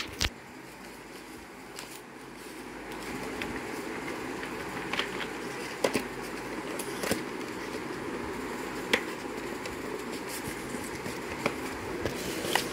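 Scattered light clicks and taps from handling a geometry box in its cardboard sleeve, over a steady background noise that grows a little louder about three seconds in.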